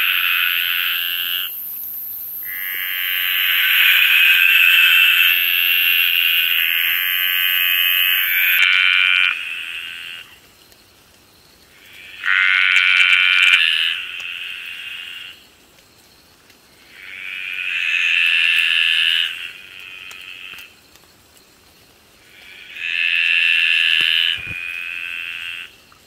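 Tree frog calling: five long, drawn-out calls of a few seconds each, about every five seconds. The second is the longest, about seven seconds. A thin, high, steady insect trill runs under the first eight seconds or so.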